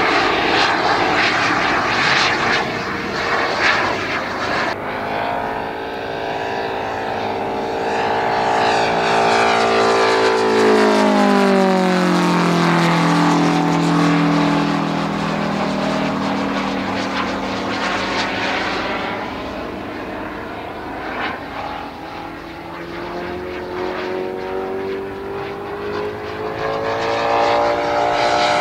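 Propeller engine of a large radio-controlled Focke-Wulf Fw 190 model in flight. The engine note drops steadily from about eight seconds in, holds low, then climbs again over the last several seconds.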